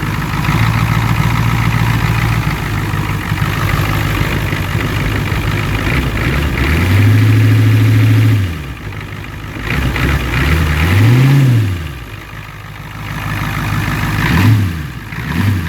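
A 1990 Ford F-250's 7.3-litre IDI V8 diesel runs at idle shortly after a cold start, then is revved: it rises and holds at higher revs for about two seconds, then drops back, followed by three shorter rev blips near the end.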